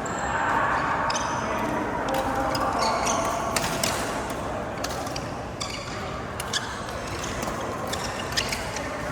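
Badminton rally in a hall: sharp racket hits on the shuttlecock, irregularly about once a second, with short high squeaks of shoes on the court floor over a steady hall background.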